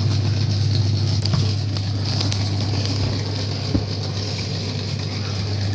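Homemade compressor prototype running with a steady low electrical hum, with a few light clicks and rattles.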